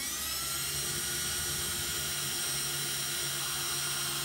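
Cordless drill with a 3/32-inch pilot bit spinning up and then running at a steady whine as it bores a pilot hole into a metal boat-frame tube.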